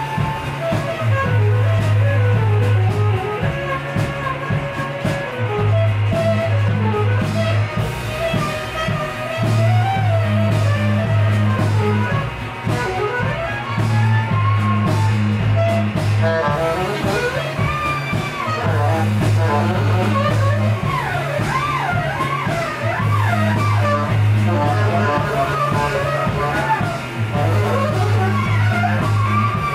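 Live band playing an instrumental passage: a saxophone lead line over electric guitar, keyboard, drums and a repeating low bass pattern. From the middle of the passage on, the lead line bends and swoops up and down.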